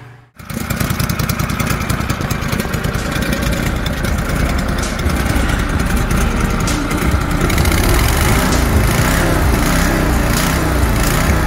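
Duromax XP23HPE 713cc V-twin mud-motor engine running loud, fitted with a Mikuni carburetor kit and twin stainless 420-style exhausts. It cuts in abruptly a moment in, and its pitch wavers up and down in the second half.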